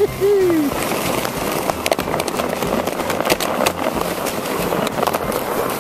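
Jeep Wrangler running slowly on an icy road while towing a plastic sled on a rope: a steady rushing rumble with scattered clicks and crackles of the sled and tyres on the ice. There is a short falling squeal right at the start.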